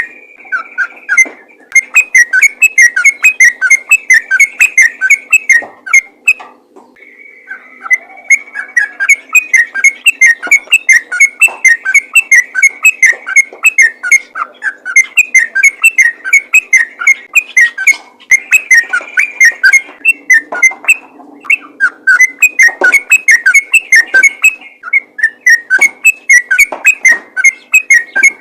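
Yellow-vented bulbul (trucukan) singing a rapid, continuous chattering song of quick whistled notes, with a short pause about six seconds in.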